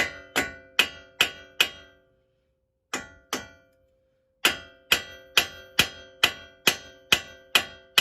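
Hammer tapping on metal to work a new front strut into its groove. The taps come about two and a half a second, each ringing briefly: five taps, a short pause, two more, then a steady run of about nine.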